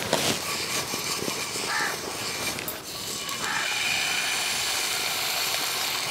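Steady sizzling hiss of rice batter poured onto a hot clay odu pan over a wood fire, setting in about halfway through, with a few bird calls before it.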